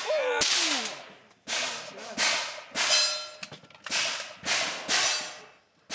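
Gunshots at an outdoor range, about seven sharp reports in six seconds at uneven spacing, each trailing off in a short echo; more than one gun is firing.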